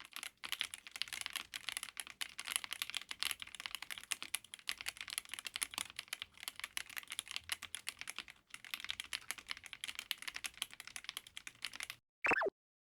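Fast typing on a MonsGeek M1W mechanical keyboard with an aluminium case and gasket mount: a dense, irregular run of key clacks that stops about twelve seconds in. A brief gliding tone follows just before the end.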